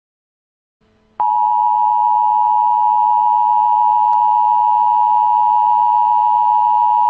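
Dead silence for about a second, then a steady electronic alert tone, pitched high and unchanging, starts suddenly and holds. It is the attention signal of an emergency broadcast alert.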